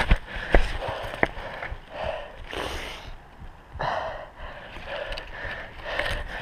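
A runner breathing hard, with quick, repeated breaths and two longer, heavier gasps about two and a half and four seconds in, over the thuds and scuffs of footsteps on rocky ground.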